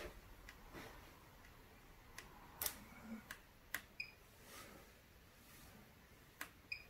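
Faint taps and clicks of a finger on the Bosch Cookit kitchen machine's touchscreen. The machine gives a short high beep about four seconds in and again near the end.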